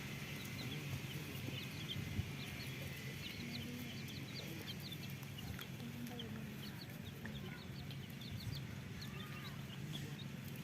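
Chicks peeping, many short high cheeps scattered throughout, with a hen clucking low a couple of times.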